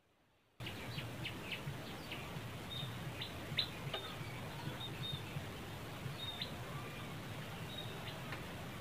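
Outdoor ambience that cuts in suddenly about half a second in: birds chirping with many short, high peeps and quick falling notes over a steady low hum.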